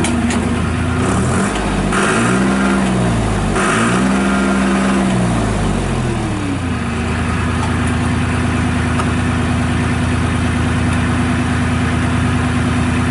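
John Deere 240 Series II skid steer's diesel engine running. Its speed dips and comes back up a couple of times in the first half, then holds steady, with two short bursts of hiss along the way.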